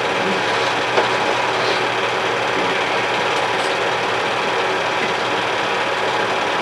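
Home-movie film projector running: a steady mechanical whirr and clatter as the film advances.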